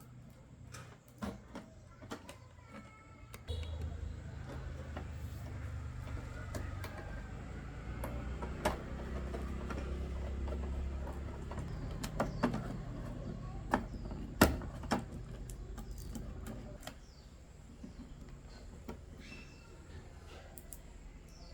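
A small electric motor runs steadily for about thirteen seconds, starting a few seconds in, amid scattered sharp clicks and knocks of small parts and tools being handled.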